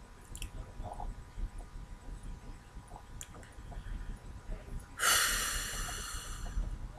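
A person's loud breath out close to the microphone about five seconds in, lasting about a second and a half and fading, amid faint small ticks and room noise.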